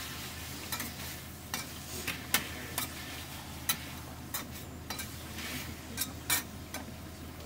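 Irregular clicks and taps of utensils against a pan over a light sizzle as offal (horumon) cooks, with a steady low hum underneath.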